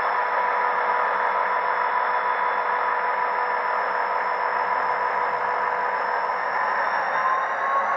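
Digital sound decoder in an H0-scale model diesel locomotive playing a steady diesel engine running sound through its small onboard speaker. A faint tone rises near the end.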